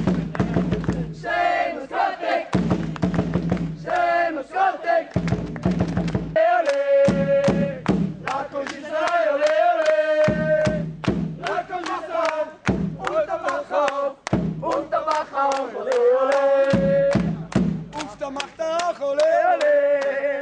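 A group of sports fans chanting and singing loudly together in unison, with sharp hits among the voices.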